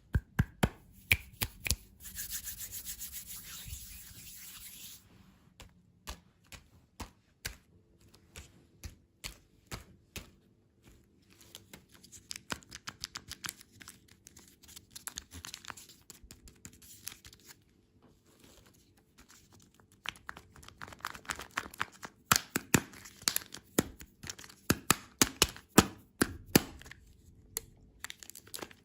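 Close-up handling and opening of candy packaging: many sharp taps and clicks, with a few seconds of hissy rubbing or scraping about two seconds in, and a dense run of clicking near the end.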